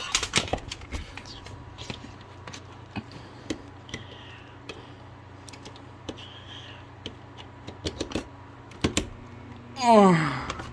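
Irregular clicks and knocks of a plastic box fan and its power cord being handled and plugged in. Near the end comes a short, loud sound that falls steeply in pitch.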